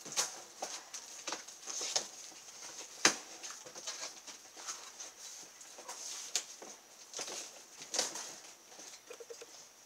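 Cardboard box being handled and rummaged: flaps scraping and rustling, with irregular knocks and clatters of the metal run parts inside, the sharpest about three seconds in.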